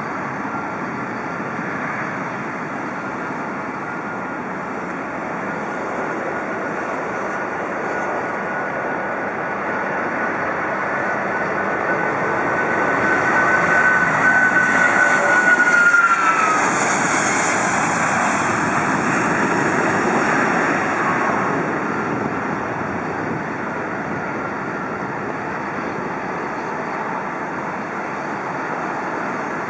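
Boeing 777-200ER's twin Rolls-Royce Trent 892 turbofans at takeoff power as the jet goes past. A whine builds and then drops in pitch about halfway through, where the sound is loudest, and a broad roar follows and slowly fades.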